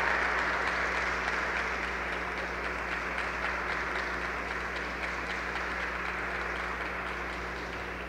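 Audience applauding, slowly fading, over a steady low hum.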